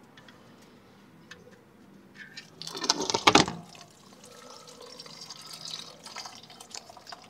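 Old engine oil pouring out of a Ford Explorer's oil pan drain hole into a catch pan as the drain plug comes out. A loud burst of noise comes about three seconds in, then a steady pouring, splashing stream.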